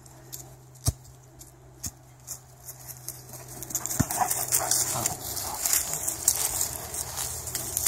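Rustling in grass and dry leaves as a Doberman pushes a soccer ball around with its nose, louder from about halfway through, with a few sharp knocks, one of them about four seconds in.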